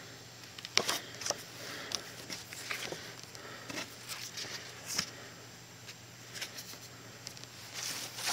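Photo prints being handled and leafed through by hand: a string of light papery rustles and clicks.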